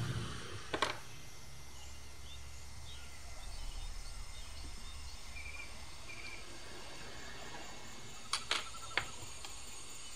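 Steady low hum with a few sharp clicks: one about a second in and three close together near the end. Faint short high chirps come and go in between.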